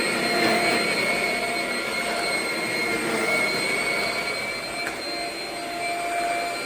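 Shark Rocket stick vacuum running steadily, a motor whine over rushing air, as it is worked over a thick entry mat. Its airflow is unblocked after the filter and brush roll were cleaned, and it sounds like it is breathing better.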